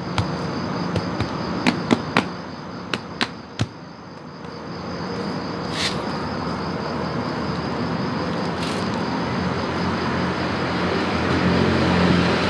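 Several sharp clicks and taps in the first four seconds, then a low rumbling noise that slowly grows louder, over a steady high-pitched whine.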